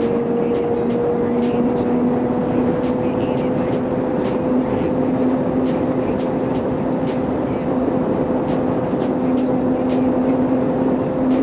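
Sport motorcycle engine running at a steady cruise, its hum creeping slightly up in pitch, under heavy wind rush on a helmet-mounted microphone.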